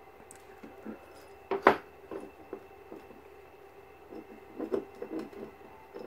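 Scattered light knocks and rubbing on a pine board platform as a hamster moves about on it and a hand brushes nearby. One sharper knock comes about a second and a half in, and a cluster of smaller ones near the end, over a faint steady hum.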